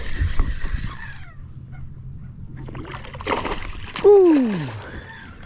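A hooked fish splashing at the surface of shallow water as it is reeled in close. About four seconds in there is a sharp, loud splash, followed by a short sound sliding down in pitch.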